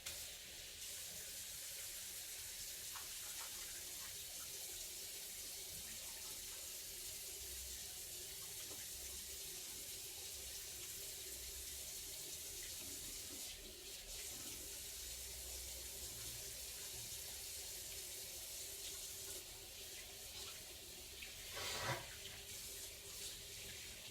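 Sink faucet turned on, water running steadily into the basin while hands are washed under it. There is a brief louder sound near the end.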